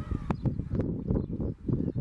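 Wind buffeting the microphone in uneven gusts, with a few sharp clicks and a short bird chirp near the start.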